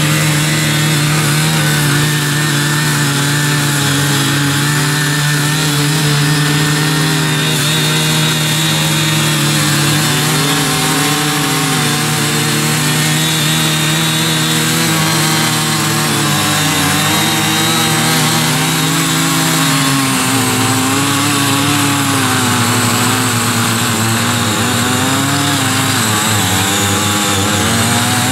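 Small 43cc CY50 walk-behind cultivators running steadily, their rotary tines churning hard, untilled soil under load. About 20 seconds in, one engine's note drops to a lower pitch.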